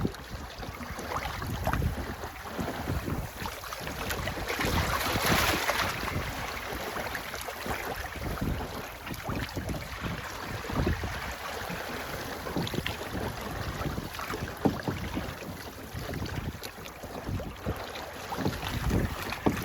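Wind buffeting the microphone over the rush of water along a sailboat's hull, with a louder surge of water about five seconds in.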